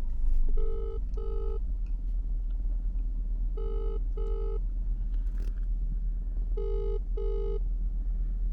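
Telephone ringback tone of an outgoing call ringing: three double rings, each a pair of short tones, about three seconds apart, heard through the phone's speaker.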